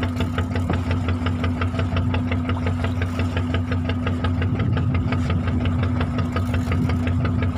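A fishing boat's engine running steadily at slow trolling speed, with a fast, even knocking beat.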